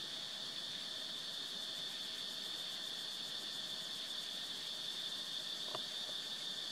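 Insects droning steadily at a high pitch, a continuous background chorus.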